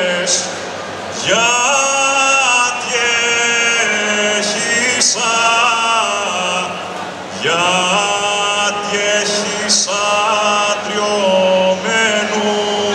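Group of men singing a Cretan rizitiko in long, drawn-out held notes with ornamented turns. The phrase breaks off briefly about a second in and again about seven seconds in before the voices come back in.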